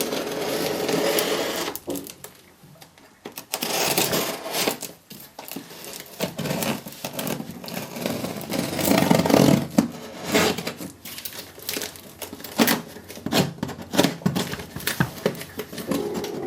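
Cardboard shipping box being opened and its packing handled: stretches of rasping, scraping noise and a string of short knocks and clicks.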